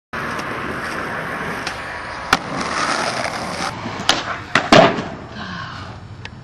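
Skateboard wheels rolling over concrete, broken by several sharp clacks of the board striking and landing, the loudest about three-quarters of the way through.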